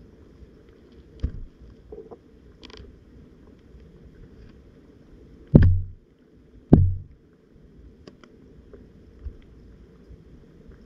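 Muffled underwater sound through a submerged camera's housing: a steady low rumble, with a light knock just over a second in and two heavy, dull thumps about a second apart near the middle.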